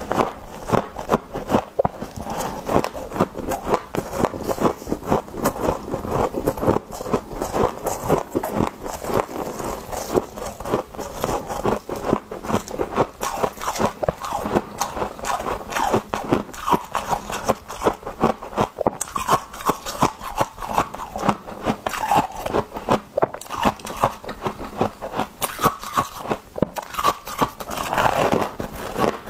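A person biting and chewing chunks of ice close to the microphone, a steady run of sharp crunches, several a second.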